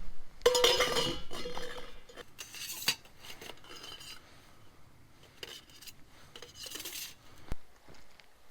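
Metal cookware and utensils clinking and clattering as they are handled, in three short bursts, the first the loudest, with a single sharp click near the end.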